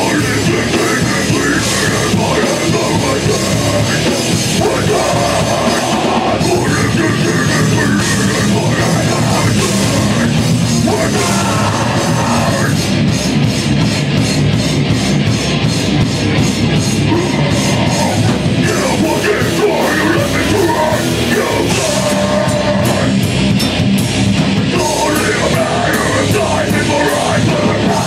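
Heavy metal band playing live and loud, with a run of fast, even drum hits through the middle.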